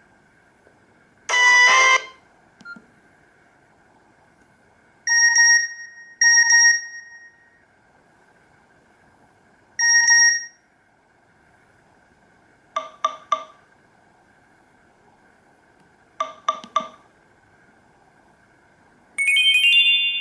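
Nokia E66 ringtone playing: a sparse electronic tune of short chiming notes a few seconds apart, two quick groups of three ticks in the middle, and a bright chord near the end.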